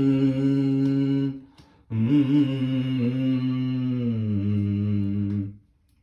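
A lone voice singing a Ganesha devotional song with no accompaniment, holding long drawn-out notes. One held note breaks off about a second in. After a short pause a second long note follows and steps down in pitch near the end.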